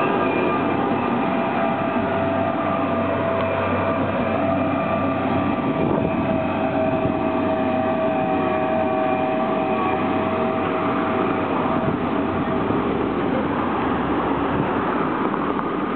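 Road traffic rumble with a steady whine from a heavy vehicle's engine and drivetrain close by; the whine shifts slightly in pitch and fades out a few seconds before the end.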